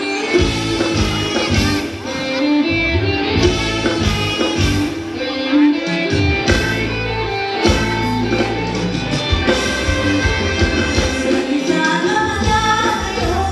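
Thai ramwong dance music played by a live band, with singing over a pulsing bass beat.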